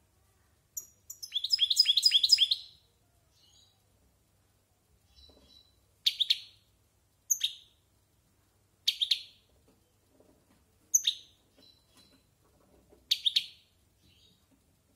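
European goldfinch singing: a rapid run of about ten quick, high notes about a second in, then short, sharp phrases of two or three notes every second or two.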